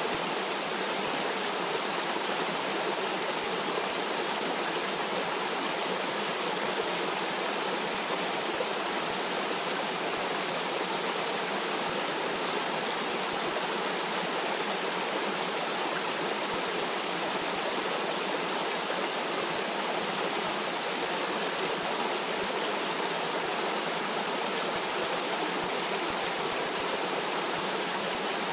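A stream flowing steadily, an even rushing of water with no breaks or changes.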